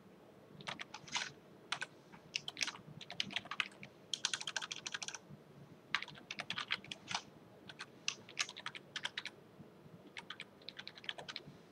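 Typing on a computer keyboard: several quick runs of keystrokes separated by short pauses.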